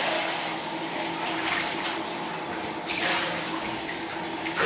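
Bathtub tap running steadily, water splashing into a plastic measuring cup held under the stream.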